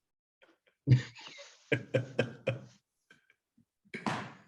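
A person's voice making short, indistinct vocal sounds broken by clicks, then a brief breathy noise near the end.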